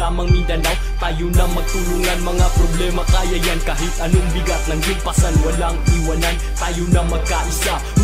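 Background music with a deep, sustained bass and a steady drum beat of punchy kicks and snare hits.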